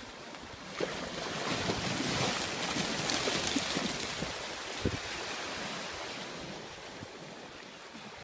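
Dogs splashing as they run through shallow surf, mixed with waves and wind on the microphone; the rush of water and wind swells in the middle, then fades.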